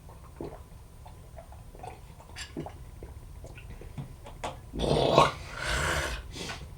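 A man drinking a glass of water with fire cider (an apple cider vinegar tonic) mixed in: faint sips and small clicks, then about five seconds in a loud throaty groan followed by a harsh breath out at the sharp vinegar taste.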